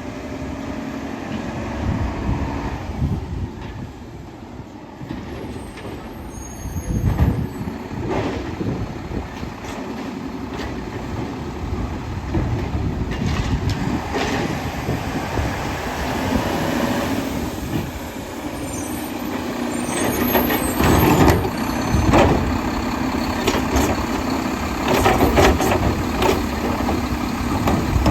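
Mack LEU garbage truck with a Labrie Automizer side loader working its route: the engine runs and swells in loudness, with air-brake hisses and several sharp knocks.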